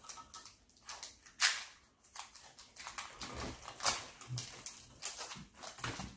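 Foil booster-pack wrappers crinkling and tearing as Pokémon card packs are ripped open, a run of sharp rustles with the loudest tears about a second and a half in and again near four seconds.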